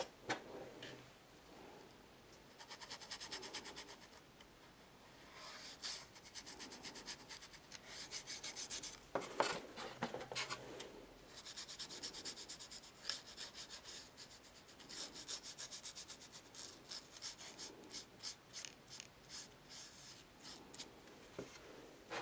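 Paintbrush stroking ink onto thin card, a soft quick scratchy rubbing in bursts of rapid strokes with short pauses between.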